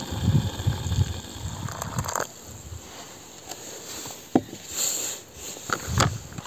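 Freshly boiled water poured from a camping-stove pot into a foil freeze-dried meal pouch, followed by a sharp click and the crinkling of the foil pouches as they are handled.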